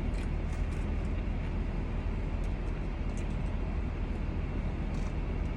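Steady low rumble of a car cabin with the vehicle running, with a few faint clicks.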